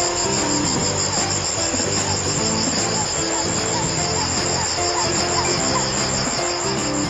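Crickets trilling in a steady, high, finely pulsing chorus, with soft background music of held low notes underneath. A few short rising peeps sound in the middle.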